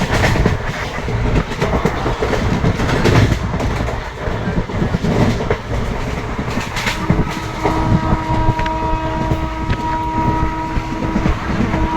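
Train running on the rails, a continuous low rumble with scattered clicks of the wheels. About seven seconds in, a steady, evenly pitched tone starts and holds.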